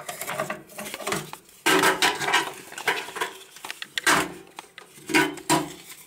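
Clatter and knocks of hard plastic and metal PC parts and cables being handled while the optical drive's ATA cable is plugged in. The sounds come as a few sudden knocks and rattles with short quiet gaps between.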